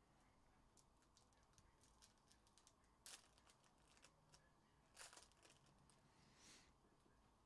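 Very faint crinkling and tearing of foil trading-card pack wrappers, with small clicks of cards being handled. There are two brief louder crinkles about three and five seconds in, and a softer rustle near the end.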